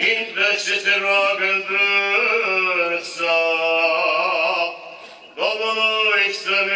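Male voices singing Orthodox liturgical chant in sustained, melismatic phrases, with a brief breath pause about five seconds in.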